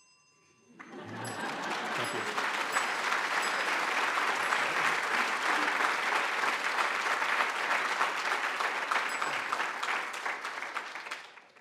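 Audience applauding: the clapping starts about a second in, builds quickly, holds steady, and fades out near the end.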